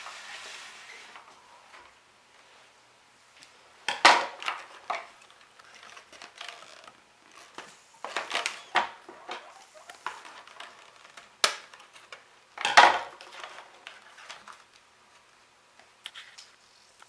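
Cardboard and clear plastic packaging being cut and opened by hand: scattered rustles, crinkles and clicks. A sharp click comes about two-thirds of the way through, and a louder crinkle follows a second later.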